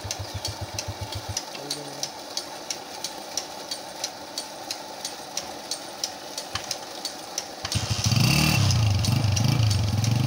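A Honda CG 125 motorcycle's single-cylinder four-stroke engine starts running loudly about eight seconds in and is revved up and down, its pitch rising and falling with the throttle. Before that, a slow low engine pulse stops after about a second and a half, leaving a run of light, regular ticks.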